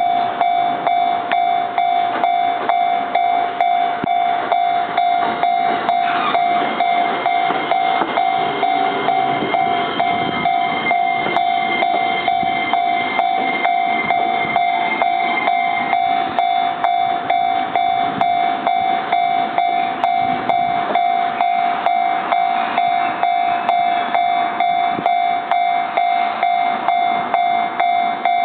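Japanese level-crossing warning bell ringing steadily in a rapid, even rhythm of about two to three strokes a second. An E231-series electric train runs slowly over the crossing in the middle. The crossing stays closed because the train comes to a stop on it.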